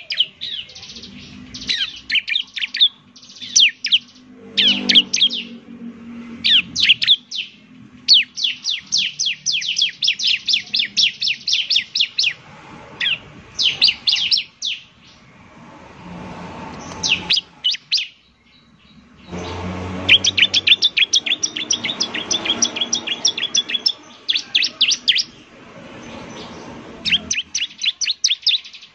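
A bar-winged prinia (ciblek) singing: fast trills of sharp, high chirps delivered in repeated bursts of a few seconds, with short pauses between them.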